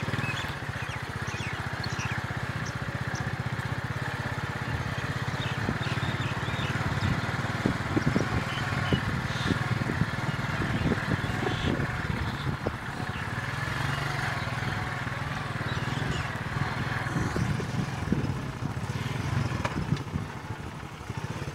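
Motorcycle engine running steadily while riding along a rural road, with occasional short knocks and rattles in the middle stretch.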